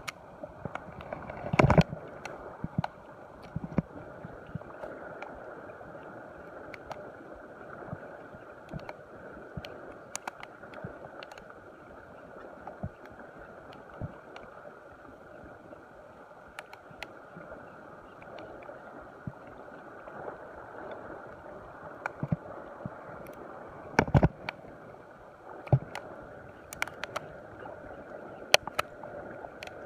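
Spinning reel being cranked to retrieve a lure on an ultralight casting rod, over a steady wash of sea water and wind. Scattered clicks and knocks from handling the rod and reel, the sharpest about two seconds in and about two-thirds of the way through.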